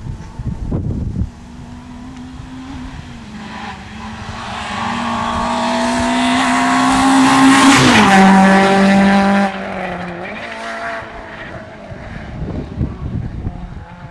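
Rally car engine at high revs approaching, rising in pitch and growing louder, then dropping in pitch as it passes about eight seconds in; the sound cuts off abruptly a second and a half later.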